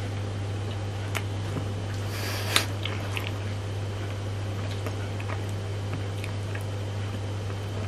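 Biting into a frozen matcha ice cream bar: a crackling crunch about two and a half seconds in ends in a sharp snap, followed by small wet mouth clicks while chewing. A steady low hum runs underneath.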